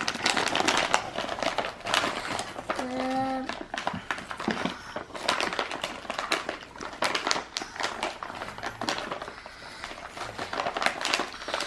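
Plastic packaging crinkling and rustling in irregular small crackles and clicks as a toy's wrapped pieces are unwrapped by hand. A brief voiced sound about three seconds in.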